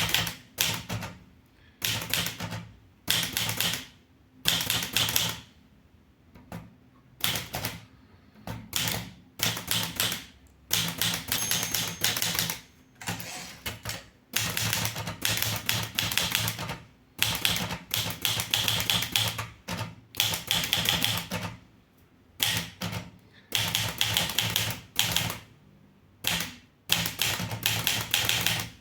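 Underwood 315 manual typewriter being typed on: bursts of rapid key strikes a second or two long, broken by short pauses between words and phrases.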